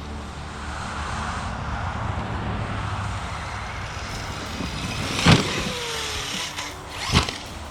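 Arrma Kraton EXB RC truck with a brushless motor running, its drive making a steady hiss, then two sharp impacts, one about five seconds in (the loudest) and another near the end.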